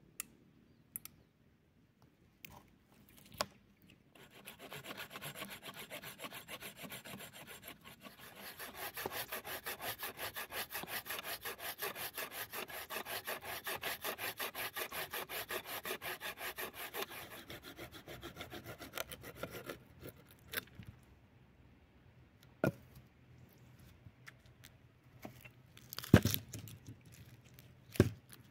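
Hand saw cutting through wood in quick, even back-and-forth strokes, starting about four seconds in and stopping about fifteen seconds later. A few sharp knocks follow, the loudest shortly before the end.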